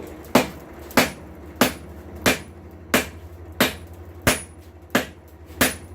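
Blacksmith's hand hammer striking hot steel on an anvil, drawing out a tong blank: about nine evenly spaced blows, roughly one and a half a second, each with a short high ring, over a steady low hum.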